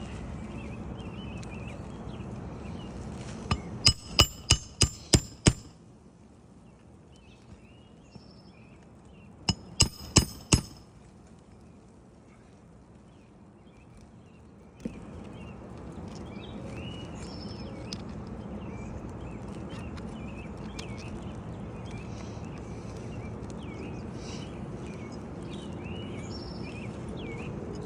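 Hammer striking a Roof Snake nailing tool to drive roofing nails back under a 3-tab shingle, metal on metal with a ringing clang. A quick run of about eight strikes, then four more some five seconds later.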